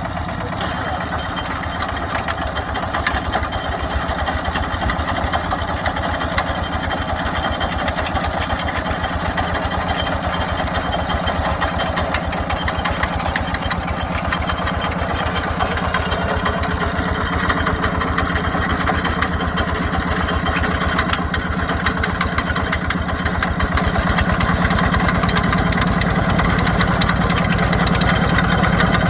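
A walk-behind power tiller's engine running steadily, driving a tiller-mounted garlic harvester, with a dense rattle of clicks over it. It grows a little louder near the end.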